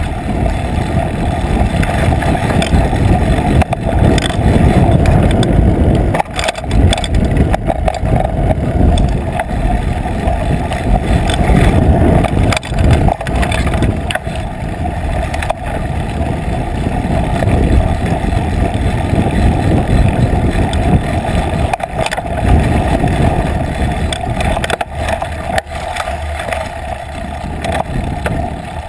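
Trek Fuel EX8 mountain bike rolling fast over rough dirt single track, picked up by a camera clamped to its seat post. A steady rumble of wind and tyres runs throughout, with frequent knocks and rattles as the bike hits bumps.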